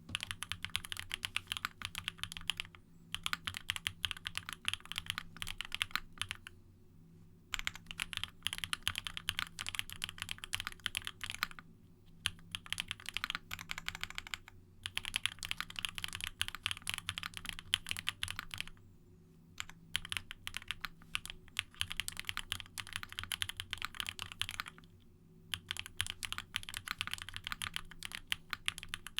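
Typing on a Monstargear Sangeo60 custom mechanical keyboard with lubed Durock Piano POM linear switches in an aluminium plate and GMK ABS double-shot keycaps. Rapid runs of keystrokes are broken by short pauses every few seconds.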